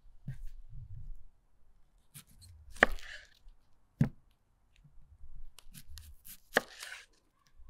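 Knife cutting a whole onion on a wooden cutting board: three sharp knocks of the blade through the onion onto the board, with small clicks and rustling of handling between.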